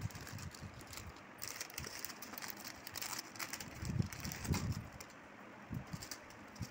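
Clear plastic jewellery packets crinkling and rustling as they are handled and opened, with a few dull knocks of handling a little past the middle.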